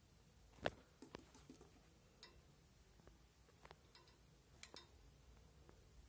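Near silence broken by a few faint, scattered clicks and ticks from budgerigars in their cage. The sharpest click comes less than a second in.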